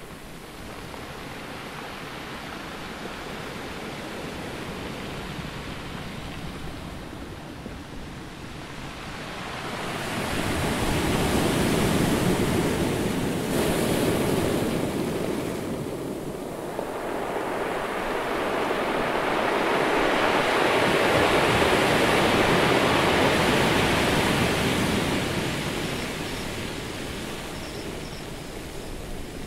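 Ocean surf washing over a beach, a steady hiss that swells twice as waves come in and draw back.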